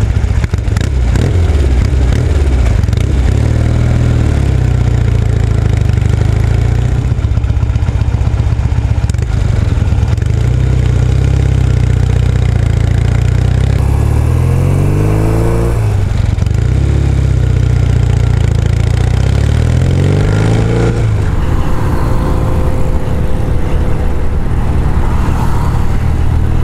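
Classic British parallel-twin motorcycle engine, heard from the bike itself while it is ridden, over wind and road noise. Twice near the middle the engine pitch climbs under acceleration and then drops back as the rider shifts up a gear.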